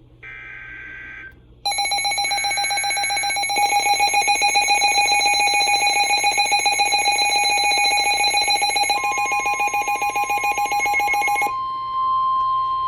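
Emergency Alert System alert tones for a severe thunderstorm warning: a short burst of screeching digital header data, then a loud, fast-pulsing alarm beep. About nine seconds in a steady, slightly higher warning tone joins it and carries on alone after the beeping stops near the end.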